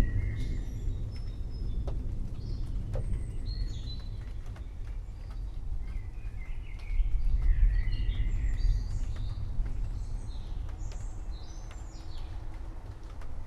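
Several forest birds chirping and whistling over a low rumble of distant thunder that swells about seven seconds in.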